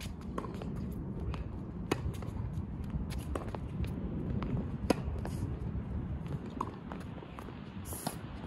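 Tennis ball struck by rackets in a singles rally on a hard court: sharp pops every second or two, the loudest about two and five seconds in, with fainter pops and footsteps between.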